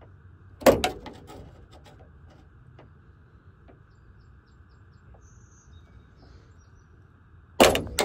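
Sharp clicks and clatter of a hand tool working the door-handle rod's retaining clip inside a first-generation Dodge Ram's steel door. There is a loud clack about two-thirds of a second in and a few light ticks, then another loud clack and short clatter near the end as the clip pops free of the handle lever.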